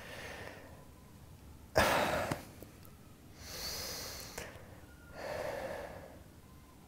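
A man breathing heavily and sighing in distress. There is a sharp, loud intake of breath about two seconds in, then two slower, longer breaths.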